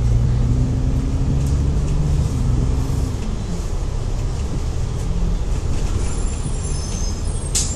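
Diesel engine of an Alexander Dennis Enviro500 double-decker bus on the move, heard from inside: a steady low drone whose pitch climbs for a couple of seconds, drops about three seconds in, then settles.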